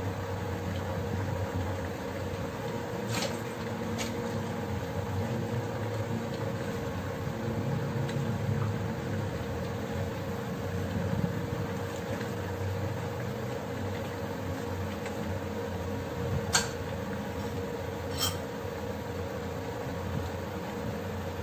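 Steady mechanical hum with a low rumble, under a few short, sharp clicks from the pot and utensils as vegetables are pressed in and stirred with a wooden spatula; the loudest click comes about two-thirds of the way through.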